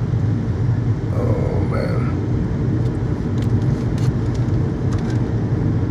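Steady low rumble of a moving car heard from inside the cabin: tyre, road and engine noise at cruising speed.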